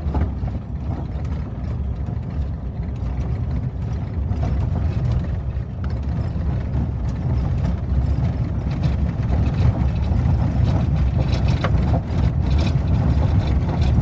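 A Jeep driving in four-wheel drive on a rough, sandy dirt road: a steady low rumble of engine and tyres, a little louder in the second half, with scattered knocks and rattles from the bumps. The tyres are not aired down, which makes the ride loud and bumpy.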